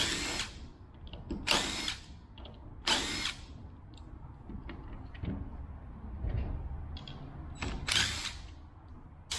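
Cordless driver with a T30 bit backing out the bolts that hold the actuator on a Can-Am SmartLok front differential, in four short bursts of about half a second each, with light clicks of metal parts being handled in between.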